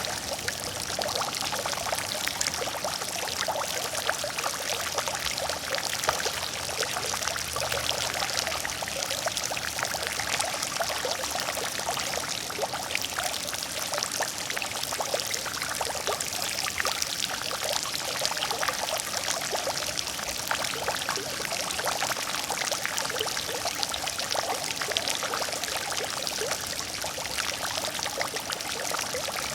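Water fountain: a steady stream of water splashing and pouring into a pool, with many small drops spattering.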